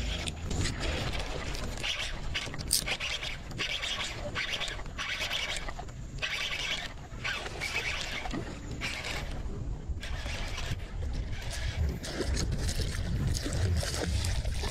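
Wind rumbling on the microphone, with repeated patches of rough hissing noise, each a second or two long, while a bass is played and reeled in on a baitcasting rod.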